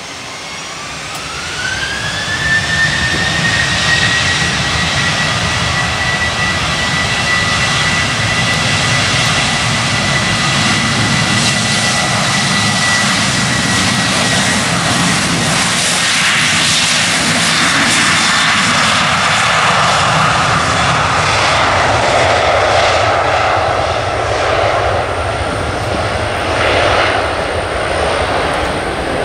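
Boeing 737-800's CFM56-7B jet engines spooling up to takeoff thrust. A rising whine levels off about two seconds in, then the engines hold a steady loud roar as the airliner accelerates down the runway. The whine fades under a rougher, lower roar in the second half.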